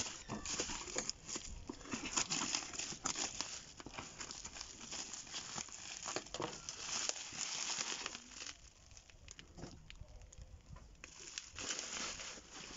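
Black plastic bubble wrap crinkling and crackling in irregular bursts as it is pulled off a cardboard box by hand, quieter for a couple of seconds past the middle.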